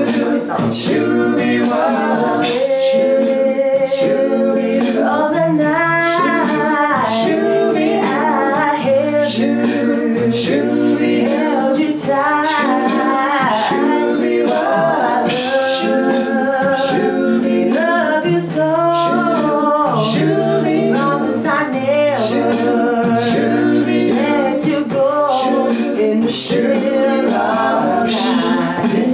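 A mixed a cappella vocal group singing in harmony: a woman's lead voice over backing voices and a sung bass line, with a beat made by mouth (beatboxing).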